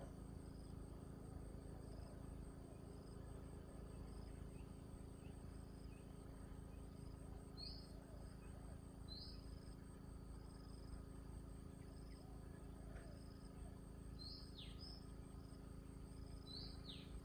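Faint outdoor ambience: an insect chirping in a regular pulse of short high notes, about one and a half a second, with a few louder bird chirps that sweep downward, over a steady low hum.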